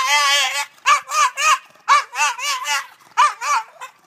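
English bulldog screaming and crying in distress at being left in a kennel. A long, wavering high-pitched cry is followed by runs of short, rising-and-falling yelps, three or four at a time.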